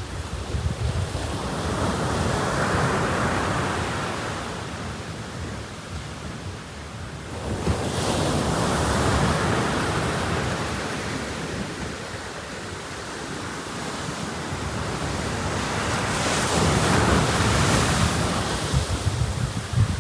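Waves breaking and washing up a beach in slow surges, three swells about seven seconds apart, with wind buffeting the microphone.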